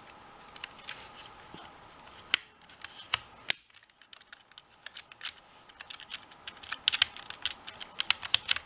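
Small plastic clicks and taps of PS4 disc-drive parts being handled and snapped back together. There are two sharp clicks a few seconds in, then a quick run of small clicks near the end.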